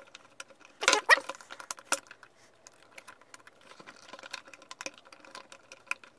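Small clicks and scrapes of an insulated screwdriver turning a terminal screw on the back of a plastic fused switch as a wire is tightened in, with a louder cluster of clicks about a second in.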